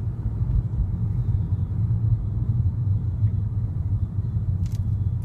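Steady low rumble of road and engine noise inside the cabin of a 2013 Nissan Maxima on the move, with one short click near the end.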